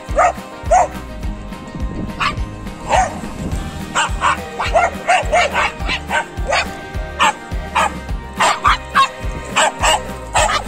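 Dogs play-barking and yipping in short, sharp calls, several in quick runs, over background music with a steady bass pattern.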